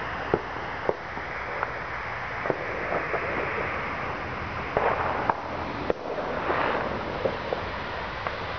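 Distant New Year's Eve fireworks and firecrackers: scattered sharp bangs and pops, a few louder ones past the middle, over a steady rushing background.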